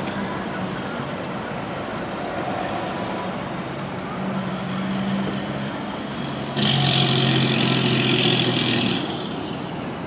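A motor vehicle engine running steadily in outdoor traffic noise. About six and a half seconds in, a loud hiss starts suddenly and lasts about two and a half seconds, then stops.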